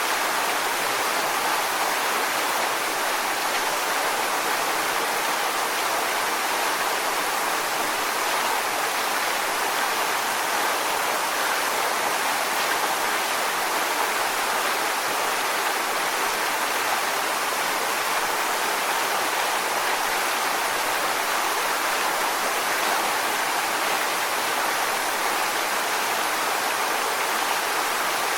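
Waterfall: water falling and splashing onto rocks as a steady, even rush without a break.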